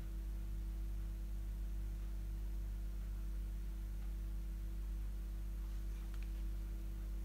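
Steady low hum with a few faint fixed tones above it, unchanging throughout, with a couple of faint ticks about six seconds in.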